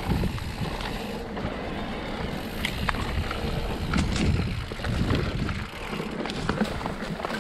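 Mountain bike riding down a dirt trail: tyres rumbling over the ground and the bike rattling, with many scattered sharp clicks and knocks.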